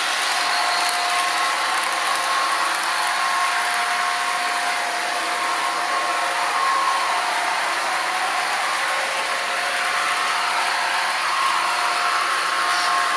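Sound decoder in an HO-scale Rapido F40PH-2D model locomotive playing a steady diesel prime-mover sound through its small speaker, with model freight cars rolling on the track.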